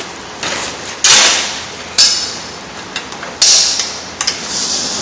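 Sharp metallic clacks, three of them about a second apart with smaller clicks between, from work on the clamp of a wheelchair leg rest ring as it is tightened back down.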